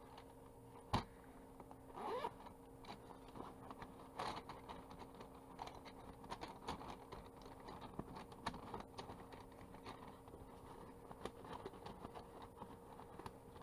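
Wooden colored pencils clicking and tapping against each other as a bunch of them is handled and pushed into a felt pencil pouch, with a sharper knock about a second in.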